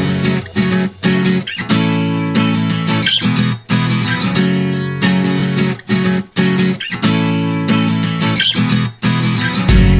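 Background music led by a strummed acoustic guitar, its chords changing every second or so with short breaks between phrases.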